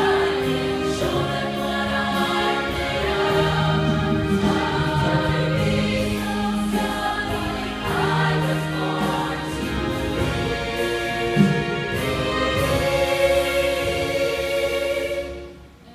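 Choir of young women singing together in harmony. The final chord cuts off sharply near the end.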